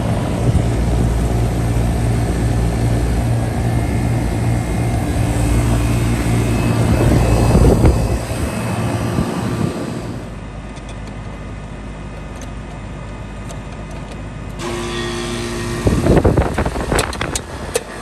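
Air-conditioner condensing units running with a steady low mechanical hum. The sound changes abruptly twice as one unit gives way to another. Near the end comes a quick series of loud knocks over a hum.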